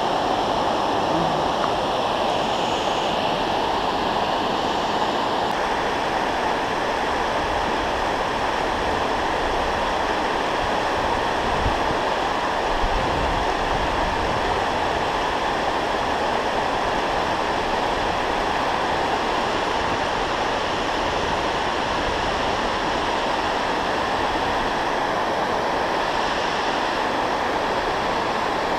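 Water pouring over a low dam spillway: a steady, even rush of falling water.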